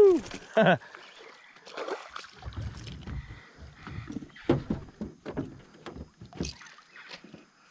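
Hooked peacock bass splashing at the surface beside a small aluminium boat, with irregular knocks and low thumps on the hull.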